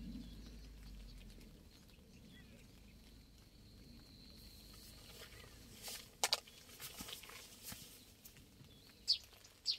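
Carp bait boilies being handled and cut: after a quiet start, a few scattered sharp clicks and taps from about six seconds in.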